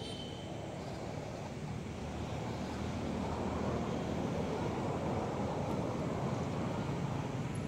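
Steady wind noise, a rushing hiss and rumble on the microphone, growing louder about three seconds in.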